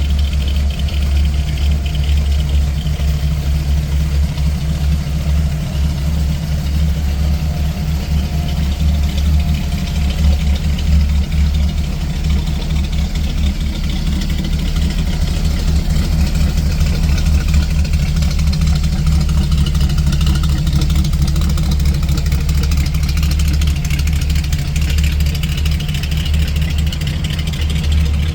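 Eleanor Mustang's V8 engine idling steadily, a deep exhaust rumble.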